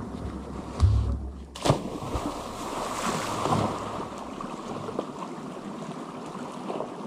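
A person plunging into a shallow creek pool: a heavy thump and splash a second or two in, then the water sloshing as he surfaces, over the steady rush of the running creek.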